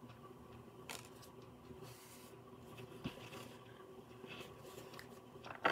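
Quiet handling of a deck of oracle cards: faint scrapes and light taps as a card is drawn and laid on a table, with a sharper click near the end.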